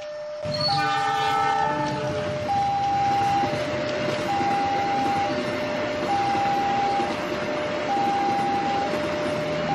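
A miniature level-crossing alarm sounds an electronic two-tone signal, alternating high and low about every three quarters of a second. About half a second in, a toy train sounds a short horn chord, and its steady running noise on the track carries on as it passes the crossing.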